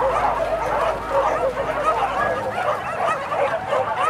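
A pack of hunting dogs yelping and baying over one another in a dense, unbroken chorus of short rising-and-falling cries: the cry of dogs hunting wild boar.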